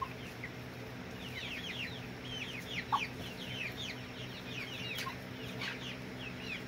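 Young chickens in a pen cheeping: a rapid, continuous run of short, high chirps, many calling at once, over a steady low hum.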